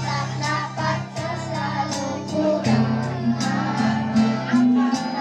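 Children singing into microphones through a sound system, over backing music with steady bass notes and a regular beat.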